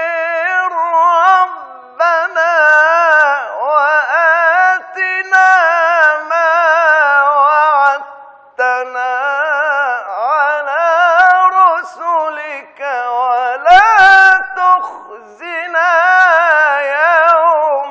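A man reciting the Quran in the melodic, ornamented tajweed style, drawing out long held phrases with wavering, turning pitch. He pauses briefly for breath about two seconds in and again about eight seconds in.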